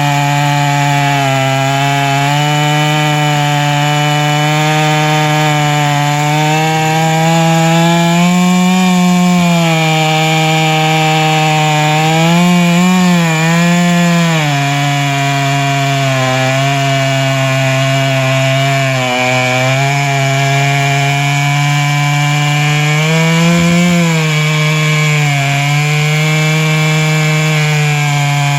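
Chainsaw running steadily under load as it rips through a log on a chainsaw mill. Its engine note wavers up and down several times as the cut loads it.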